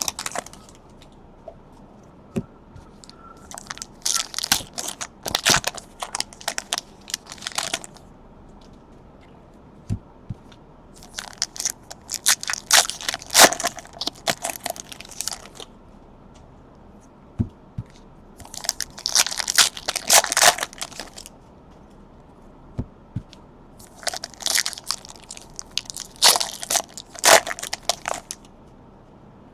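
Trading-card pack wrappers being torn open and crumpled, in four bouts of crinkling a few seconds apart, with a few light clicks in between.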